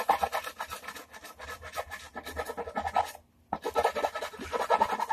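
Rapid hand strokes of an abrasive tool scraping the edge of a wooden guitar body to round it over, broken by a short pause about three seconds in before the strokes resume.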